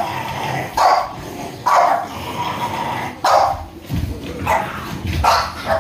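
French bulldog barking repeatedly, a short bark roughly once a second.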